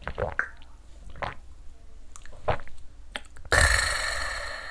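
A man knocking back a shot of soju: a few soft swallowing and mouth sounds, then about three and a half seconds in a sudden loud, raspy exhaled breath after the drink that trails off over about a second.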